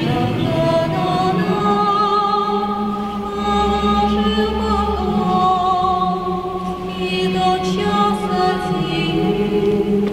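A vocal ensemble singing a slow sacred song in several-part harmony, with long held chords that shift slowly from one to the next.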